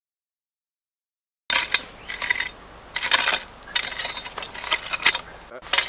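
Silence for the first second and a half, then a long-handled shovel scraping gravelly dirt in a quick series of strokes, metal blade grating over stones and soil.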